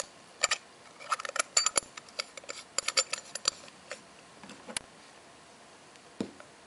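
Metal pocket watch case being handled: a run of sharp, irregular metallic clicks and clinks in the first three and a half seconds, one more click near five seconds, and a soft thump near the end.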